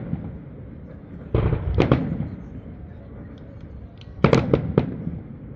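Aerial fireworks going off in bursts: a deep boom about a second and a half in, followed by cracks, then a quick run of three sharp bangs near the end.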